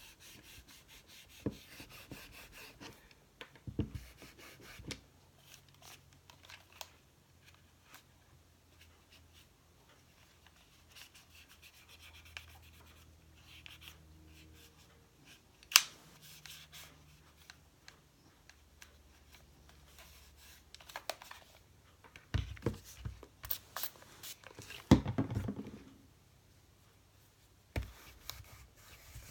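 Rubbing and scratching on the plastic body of an Olympus Infinity Jr. film camera as the grime is scrubbed off, with small handling clicks throughout. There is a single sharp click about sixteen seconds in, and a run of louder knocks and rustles around twenty-two to twenty-six seconds.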